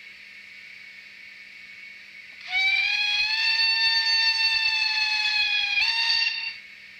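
Steam whistle from the sound decoder of an Arnold model BR 41 steam locomotive: one long whistle starts about two and a half seconds in, rises slightly in pitch, then jumps higher briefly before fading out. Before it there is only a faint steady hiss.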